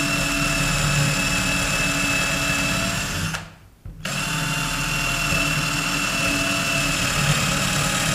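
Brushless 48 V cordless drill boring into a scrap wooden board, its motor running at a steady pitch. It stops briefly a little over three seconds in, then runs again.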